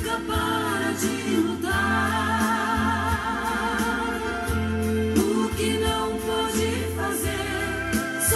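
Gospel hymn sung by a woman over a steady bass and drum beat, with a long wavering held note in the middle.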